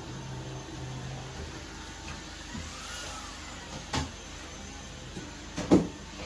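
Vacuum cleaner running steadily, its motor tone rising and falling once midway, with a sharp knock about four seconds in and a louder knock near the end.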